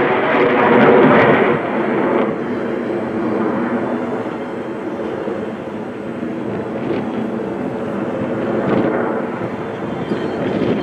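Jet noise from USAF Thunderbirds F-16 Fighting Falcons flying in formation overhead through a loop. It is loudest in the first two seconds, eases off, then swells again in the later part.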